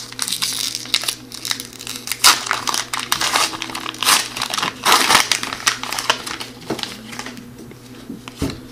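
Plastic wrapper of an O-Pee-Chee hockey card pack being torn open and crinkled by hand: a run of sharp crackles that quietens after about six seconds.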